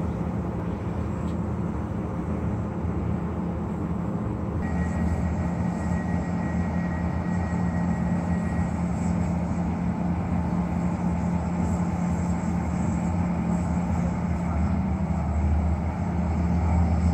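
Diesel railbus engine running with a steady low drone as the train rolls slowly into the platform. A thin high whine joins it from about five seconds in and lasts about four seconds.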